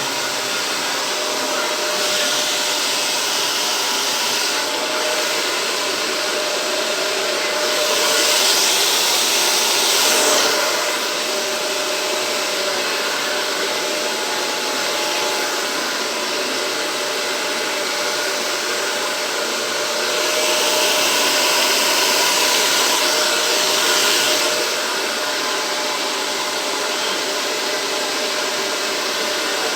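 Hair dryer running steadily, blowing acrylic paint across a canvas for a Dutch pour. It swells louder twice for a few seconds, about a third of the way in and again about two-thirds of the way in.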